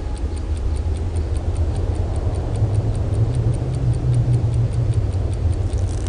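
Horror-film sound design: a low, steady rumbling drone that swells slightly in the middle, with a faint, fast, even ticking running through it.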